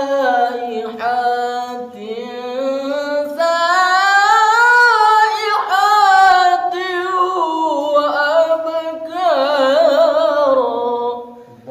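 Unaccompanied melodic Quran recitation (tilawah) by a qori, with no added reverb or effects. Long notes are drawn out with fast ornamental wavers, climb to a high peak in the middle, then step back down and die away just before the end.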